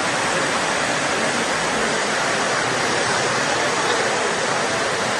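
Floodwater rushing steadily through an open storm-water drain channel after heavy rain.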